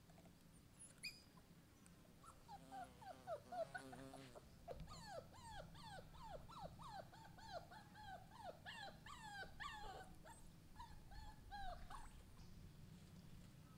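Puppy whimpering: a long run of short, high whines, each falling in pitch, about two a second, starting a couple of seconds in and stopping shortly before the end.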